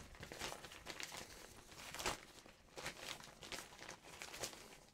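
Faint rustling and crinkling of a small collapsible 5-in-1 photo reflector's fabric being handled and turned over, with a few sharper crinkles, the loudest about two seconds in.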